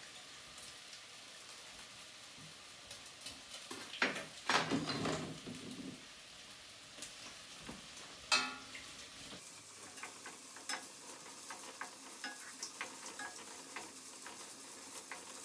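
A spoon stirring drained macaroni in a stainless steel pot: soft scraping with many small clicks against the pot. There are a few louder knocks about four and eight seconds in.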